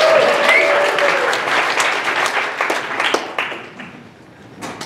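Audience applauding, loudest at the start and dying away over about four seconds.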